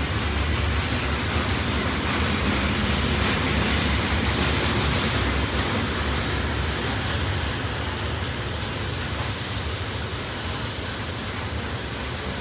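Loaded freight train's open-top hopper cars rolling past: a steady rumble and rush of steel wheels on rail, easing slightly in the second half.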